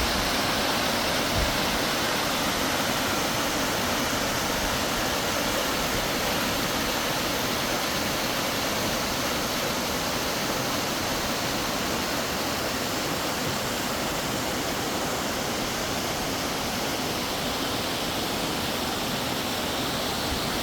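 Boksungtang waterfall pouring into its rock pool in the Sibiseonnyeotang valley: a steady, unbroken rush of falling water.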